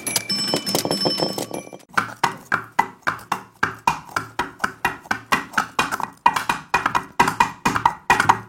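Coconut-shell halves knocked on a stone surface as foley for a horse running on stone: an even run of hollow clopping knocks, about four a second, starting about two seconds in. Before it, a short musical sting with steady high tones.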